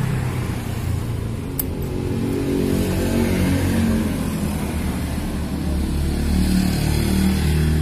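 A vehicle engine running close by, with a low, uneven hum whose pitch drifts up and down. A single sharp click comes about one and a half seconds in.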